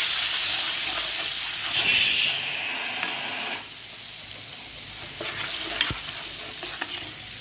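Soaked chana dal sizzling in hot tempering oil in a pan while a steel spoon stirs and scrapes it. The sizzle flares louder briefly about two seconds in, drops to a quieter hiss about a second and a half later, and is dotted with light spoon clicks against the pan.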